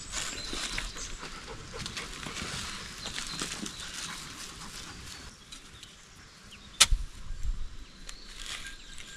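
Digging with a long-handled spade in soft, rain-soaked soil: scattered scrapes and scuffs, and one sharp knock a little past the middle.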